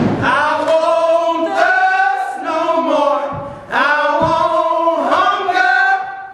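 Several voices singing together in long held notes, two phrases with a short break about three and a half seconds in.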